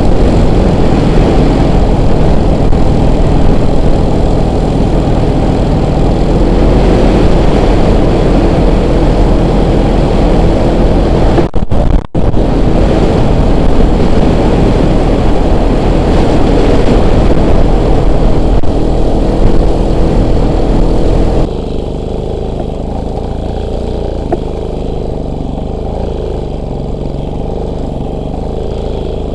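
Off-road motorcycle engine running under way, close to the microphone. It drops out for a moment about twelve seconds in, and after about twenty-one seconds it goes on at a lower level.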